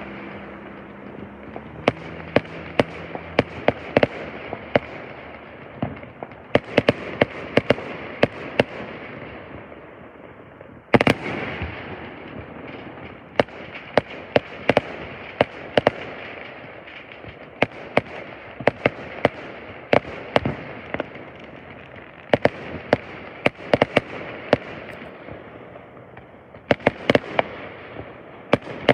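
Aerial fireworks finale: a rapid, irregular barrage of shell bangs over a continuous crackle, with the loudest bang about eleven seconds in.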